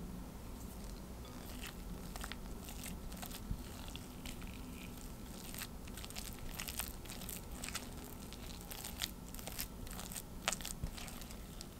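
Silicone spatula stirring and pressing a crumbly egg-yolk biscuit dough against the sides of a glass bowl while milk is worked in, making irregular soft clicks and scrapes.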